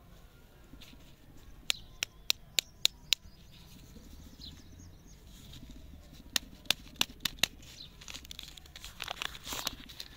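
Two quick runs of sharp clicks, about four a second, then the paper wrapper of a toffee lollipop crinkling and tearing as it is peeled off near the end.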